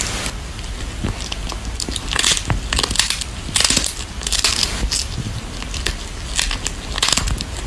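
A cat gnawing and chewing a dried fish held in its paws: close, crunchy bites coming unevenly, several a second.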